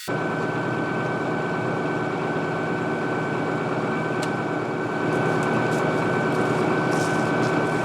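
Welding on a cracked excavator bucket: a steady arc hiss and crackle with a steady hum beneath it, starting abruptly and holding without a break.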